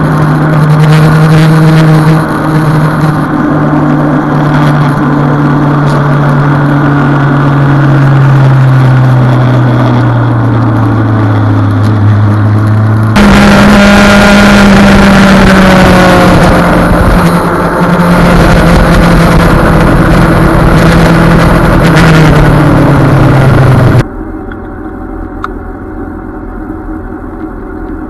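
Yamaha FZ1's inline-four engine running steadily under way, its pitch slowly falling, then jumping higher about halfway through and easing down again. For the last few seconds it is abruptly much quieter, idling.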